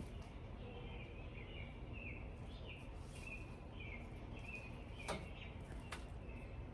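Small birds chirping in a quick series of short notes over a steady low outdoor rumble, with two sharp clicks near the end.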